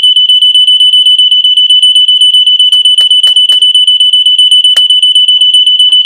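Gentex 710CC photoelectric smoke detector sounding its alarm: a loud, shrill single tone with a fast, even pulse, set off by solder smoke drawn into its sensing chamber.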